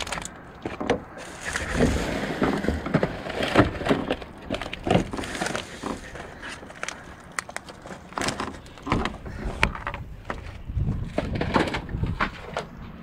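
Rummaging through trash bags and boxed goods inside a dumpster: irregular rustling and crinkling of plastic and packaging, with knocks and clatters as items are picked up and moved.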